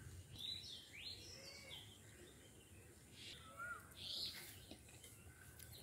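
Faint birds chirping and calling, several short high chirps and a few bending whistles scattered through, over a quiet low background hum of outdoor noise.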